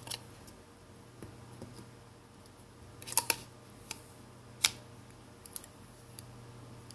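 A handful of sharp, separate clicks and taps from handling a smartphone and its small parts by hand, the loudest a quick cluster about three seconds in and a single click a little later, over a steady low hum.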